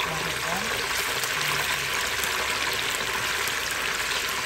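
Chicken pieces frying in hot oil in a pan, a steady loud sizzle.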